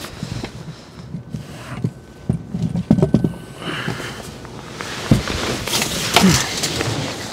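Handling noise inside a hard-shell rooftop tent: fabric and mat rustling with scattered knocks and thumps, one sharper thump about five seconds in.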